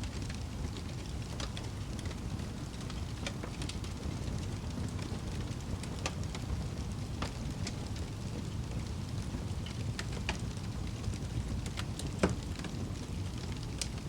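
Wood fire crackling in a fireplace: a steady low rumble with scattered sharp pops and crackles, one louder pop about twelve seconds in.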